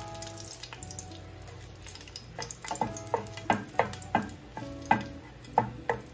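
Wooden spatula stirring dried Kashmiri red chilies in hot oil in a nonstick frying pan. After a quiet start, a run of about eight short, sharp scrapes and knocks of the spatula against the pan comes roughly every half second through the second half.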